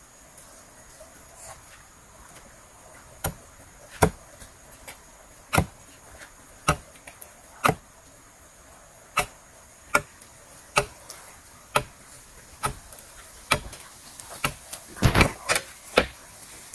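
Chopping: a series of sharp single strikes, about one a second, with a quicker cluster of strikes near the end.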